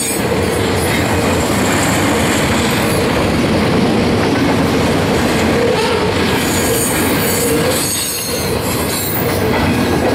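Double-stack intermodal container well cars of a Union Pacific freight train rolling past close by: a steady, loud rumble of steel wheels on rail, with high-pitched wheel squeal coming and going.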